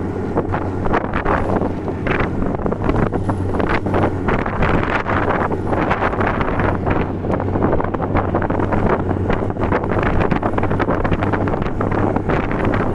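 Snowmobile engine running steadily at cruising speed with a constant low hum, under heavy wind noise on the microphone and frequent small knocks and rattles from the ride over the ice.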